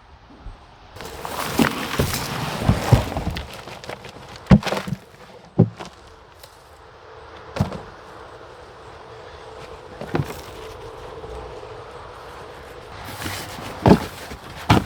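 Soil being tipped and scraped out of plastic containers, a rustling rush followed by scattered sharp knocks and thuds, as potatoes are harvested by hand.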